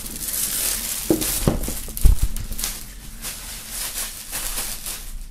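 Clear plastic shrink-wrap film crinkling as it is peeled off and crumpled, with a single dull thump about two seconds in; the crinkling grows fainter after that.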